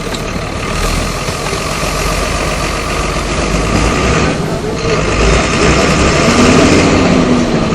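A Volksbus city bus's MWM 6.12 TCAE six-cylinder turbodiesel engine (206 hp) running, heard from inside the bus. The engine grows steadily louder, with a brief dip about four and a half seconds in.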